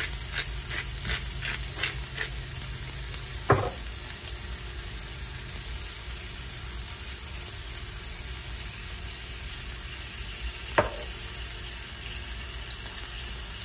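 Chicken breasts searing in a hot pan, sizzling steadily, with a run of crackling pops in the first couple of seconds. Two sharp knocks come through, one a few seconds in and another about eleven seconds in.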